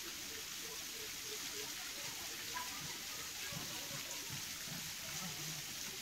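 Gandahati waterfall, running low on water, splashing steadily onto rock. Faint voices can be heard behind it.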